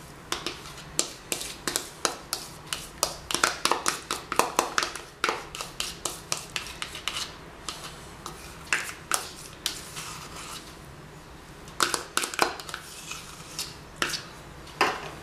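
Metal spoon scraping and tapping against a small pot while scooping out crème fraîche: a quick run of short scrapes and clicks through the first half, then a few more near the end.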